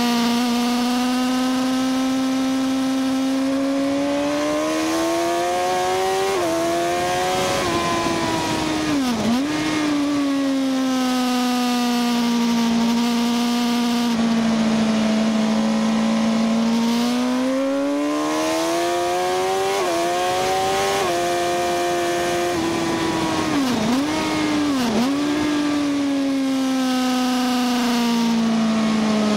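Onboard sound of a sport motorcycle's engine at racing speed on a track. The engine note rises and falls with the throttle, stepping at gear changes, with a few brief sharp dips in revs, over a steady rush of wind.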